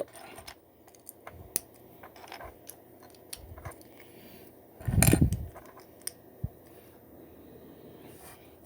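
Plastic Lego bricks clicking and clattering as pieces are picked up and snapped together, in scattered sharp ticks, with a brief louder muffled sound about five seconds in.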